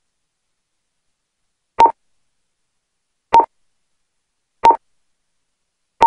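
Four short keypad beeps from a card payment terminal as the four digits of a new PIN are keyed in one at a time, spaced about a second and a half apart, the last near the end.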